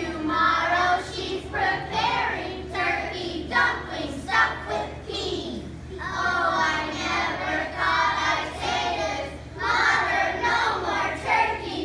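A group of young children singing together in unison, their voices rising and falling with short breaks between phrases.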